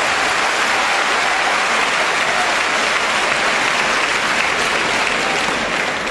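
Hall audience applauding after a point in a table tennis match, a steady wash of many hands clapping that eases off slightly near the end.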